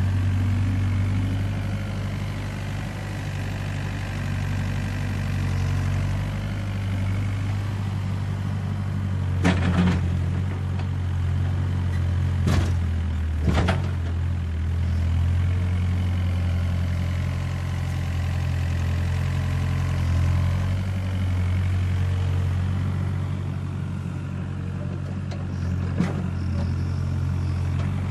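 Diesel engine of a Doosan DX55WA wheeled excavator running steadily while the arm digs soil, with a few sharp knocks, three in the middle and one near the end.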